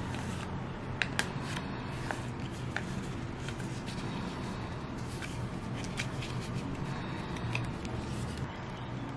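Stiff paper sleeve and cards of an iPhone documentation pack being handled and slid apart: soft rustling with a few sharp paper clicks, over a steady low background hum.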